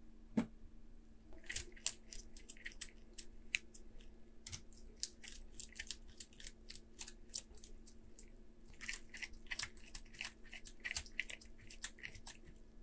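Precision screwdriver turning a small screw out of a laptop's metal hinge bracket: a knock near the start, then a long run of irregular small clicks and crackles, with a faint steady hum underneath.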